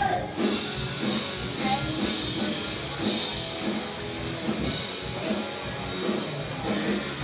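Rock music with guitar and drums, a steady beat.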